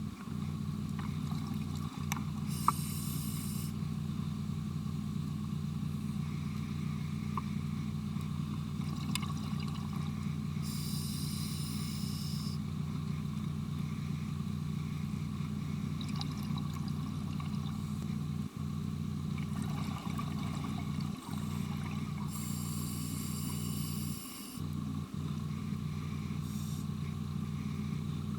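Underwater sound of a scuba diver breathing through a regulator: three hissing bursts of exhaled bubbles, about ten seconds apart, over a steady low hum.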